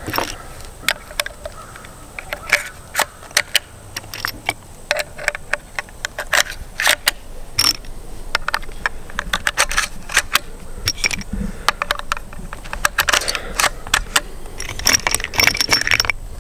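Many sharp, irregular metallic clicks and rattles of .45-70 cartridges being picked out of a wooden ammo box and pushed into the loading gate of a Marlin 1895 lever-action rifle. The clicks come thickest near the end.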